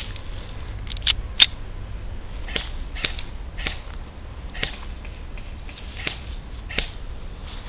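Scattered single sharp clicks of airsoft gunfire at a distance, about one a second and irregular, the loudest about a second and a half in, over a low steady background rumble.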